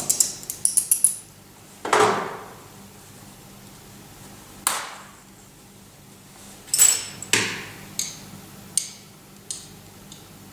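Glass tubing being scored with a glass-cutting knife and snapped off to shorten the arms of a glass T-piece. A quick run of ticks at the start, then a handful of sharp glass cracks and clinks: one about two seconds in, others near five and seven seconds, and smaller ones after that.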